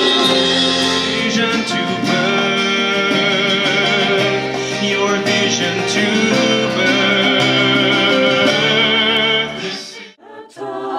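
Music: acoustic guitar playing under a singing voice with wavering held notes. The music stops short near the end.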